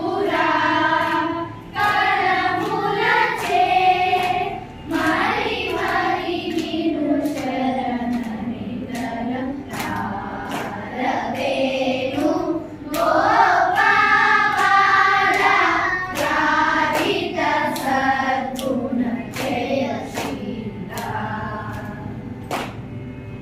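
A class of children with their woman teacher singing a Carnatic swarajathi together in unison. Regular hand claps keep the tala, and the singing grows softer in the last few seconds.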